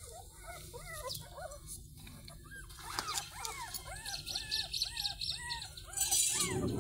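Very young puppies whimpering and squeaking in a quick string of short rising-and-falling cries. A faint rapid high chirping joins in the middle, and a loud rustle of handling comes near the end.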